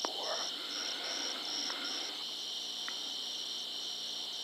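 Night insect chorus of crickets or katydids: one steady high trill, with a second insect chirping in a regular pulse about twice a second.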